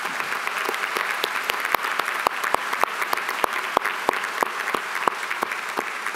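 A large audience applauding. Over it, one person's hands clap close to the microphone, loud, evenly spaced, about three to four claps a second.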